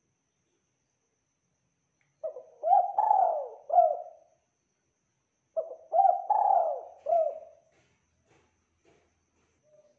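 Spotted dove (tekukur) cooing: two phrases of about four notes each, a short note, a rising coo, a longer coo and a closing note, the second phrase starting about three and a half seconds after the first.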